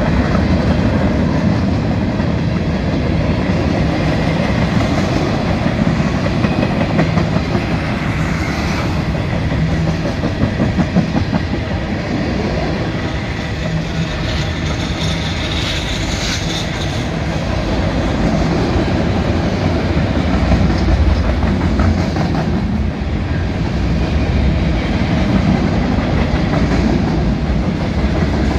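Cars of a mixed freight train rolling past: a steady noise of steel wheels on rail with clickety-clack over the joints, made by gondolas, tank cars and boxcars in turn.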